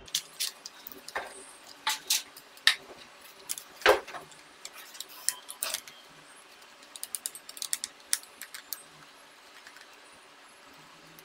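Irregular plastic and metal clicks and clatter of a laptop being taken apart: the DVD optical drive slid out of its bay and set aside. About seven seconds in comes a run of small quick ticks as a screwdriver works at the chassis screws.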